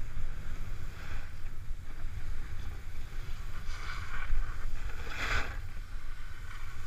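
Snowboard edge scraping across snow in short hissing bursts, the loudest a little past halfway, over a constant low rumble of wind on a GoPro Hero 3's microphone during a downhill run.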